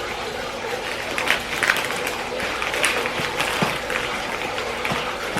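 Close-up eating sounds: irregular crackles, clicks and rustles of chewing a sandwich and handling its wrapper.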